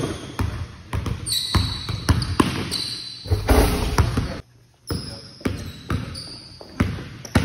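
Basketball dribbled on a hardwood gym floor: a run of sharp, irregular bounces echoing in a large hall.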